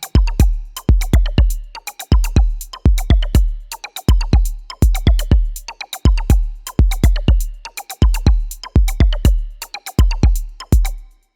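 Electronic music: a drum-machine beat of deep, punchy kicks and sharp hits in repeating clusters, cutting off suddenly near the end.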